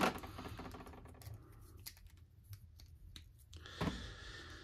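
Light plastic clicks and taps from the parts of a Beyblade Burst spinning top being handled and fitted or pulled apart, with a slightly louder handling sound just before the end.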